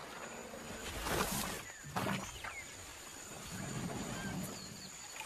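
Forest elephant probing a muddy salt-lick hole with its trunk: wet squelching and sucking of mud and water, loudest about a second in and again at two seconds.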